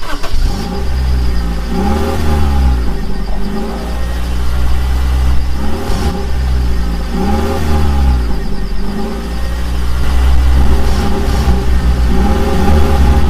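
Vehicle engine revving up and down in repeated swells every two to three seconds over a deep, steady rumble, with a steady high whine above it. It starts abruptly and is loud.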